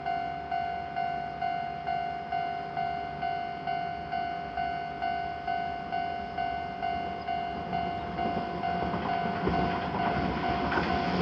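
Japanese railroad crossing warning bell ringing steadily, about two dings a second. From about eight seconds in, an approaching train's running noise rises and grows louder toward the end.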